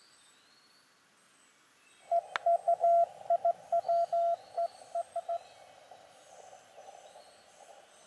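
Morse code (CW) from an Elecraft KX2 transceiver's speaker. A single tone of about 700 Hz is keyed in dots and dashes for roughly three seconds, starting about two seconds in with a click. The receiver's narrow-filtered hiss comes on with it and carries on after the keying stops.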